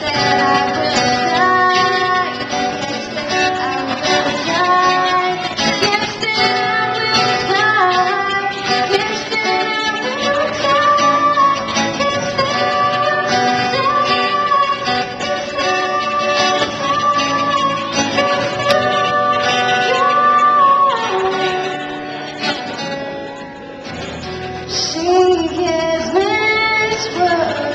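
A female voice singing live to strummed acoustic guitar, amplified through a PA. The music drops briefly quieter about three-quarters of the way through, then the singing picks up again.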